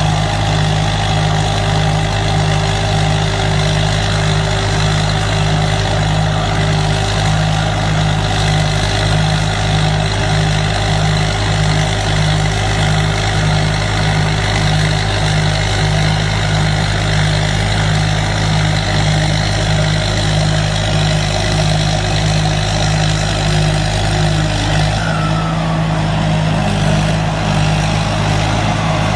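Combine harvester's diesel engine running steadily under load, with a regular low throb a little under twice a second; the note shifts slightly near the end.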